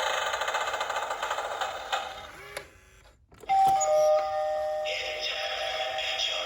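Gemmy animated Halloween eyeball doorbell playing its electronic sound effects through its small speaker. A harsh, buzzing effect fades out about two and a half seconds in, and after a short gap a new effect starts with steady tones.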